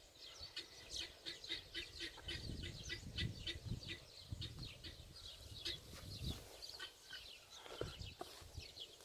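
Faint chirping of small birds: rapid, high, short chirps, several a second.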